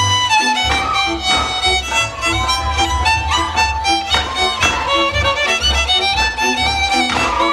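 Folk dance music led by a fiddle melody over a steady bass-and-chord beat.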